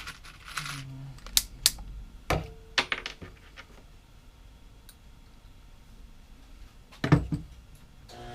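Sharp clicks and knocks as tools and wood parts are handled on a workbench: a few in quick succession early on, then quiet, then one louder knock near the end.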